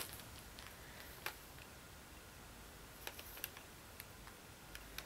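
Faint, scattered light clicks and ticks from hands handling packaged fabric, over quiet room tone.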